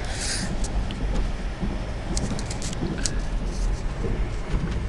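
Passenger train running on the rails, heard from inside a sleeper compartment: a steady low rumble with scattered light clicks and rattles.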